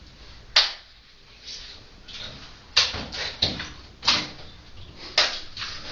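Sharp hand claps at an uneven pace: five loud claps with fainter ones between them.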